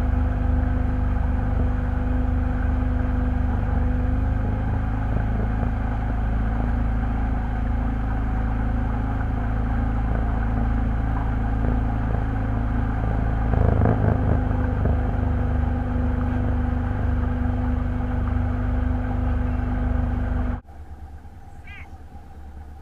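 A steady, loud engine rumble with a low hum that cuts off abruptly near the end, leaving a much quieter background with a few short high chirps.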